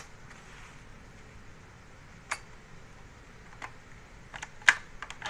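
Scattered sharp clicks and taps of small hard parts being handled during laptop repair, about seven in all, with the loudest near the end.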